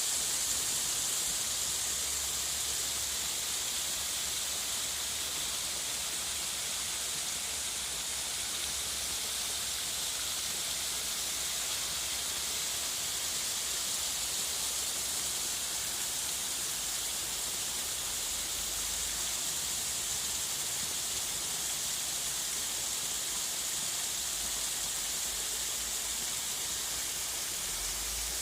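Steady white-noise hiss, even and unchanging throughout, brightest in the high treble.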